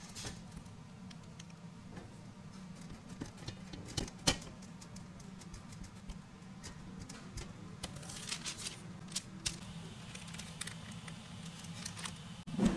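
Light scattered taps and clicks of kitchen handling over a steady low hum, with one sharper knock about four seconds in and a thump near the end.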